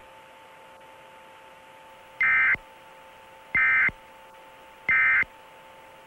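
Emergency Alert System SAME end-of-message data tones: three short, identical bursts of warbling digital data squawk, evenly spaced about a second and a half apart. They mark the end of the alert broadcast.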